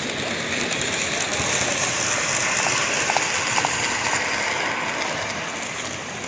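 O-scale model electric commuter train (Lackawanna MU cars) running past on the layout track: a steady rolling clatter of metal wheels on rail, loudest about halfway through and easing off near the end.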